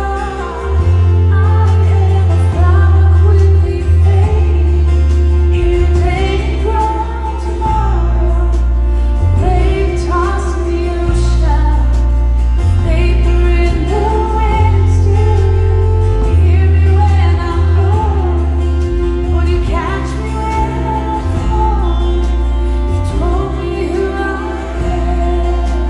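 A woman singing a worship song live, backed by acoustic guitar and deep bass notes.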